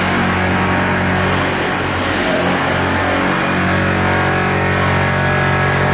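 A machine motor running steadily: a constant low hum under a broad rushing noise.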